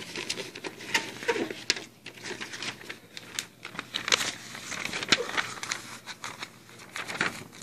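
Paper posters and magazine pages being handled and shuffled: irregular rustling and crinkling with light taps.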